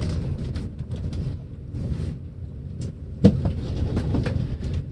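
Hard-shell guitar case being handled and set down: scattered knocks and clicks, with one loud thump a little over three seconds in, over a steady low rumble.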